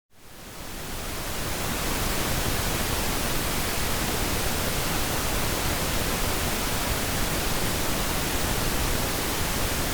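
Steady, even hiss spread across all pitches, like pink noise, with no hum or whine in it. It fades in over the first second and a half and cuts off abruptly at the end.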